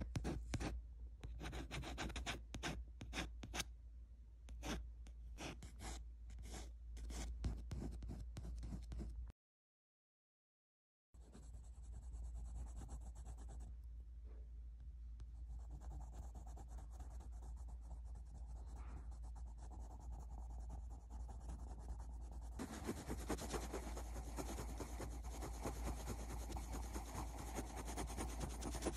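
Pencil scratching on paper while drawing fur. First come many quick short strokes, then after a brief dropout a steadier run of shading that gets louder near the end.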